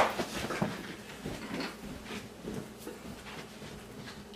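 A sharp click, then light, scattered knocks and rustling of items being handled on a kitchen counter.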